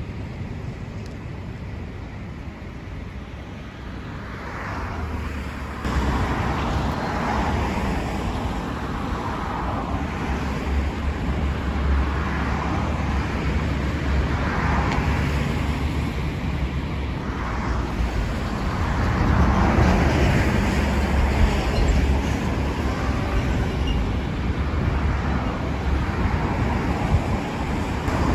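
Shinkansen trains running across a concrete river viaduct: a steady rumbling rush of passing bullet trains. It steps up abruptly and stays louder from about six seconds in.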